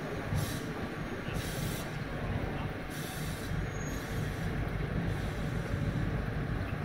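Iyotetsu tram approaching on a curve, a steady low rumble of the car on the rails with short bursts of high hiss about half a second, a second and a half, and three seconds in.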